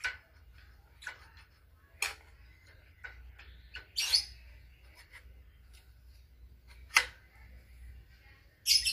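Sharp metallic clicks and short scrapes, about six of them at irregular spacing, from a PCP air rifle's barrel being fitted into its receiver by hand and its retaining screw being worked; the scrapes near the middle and near the end are the longest.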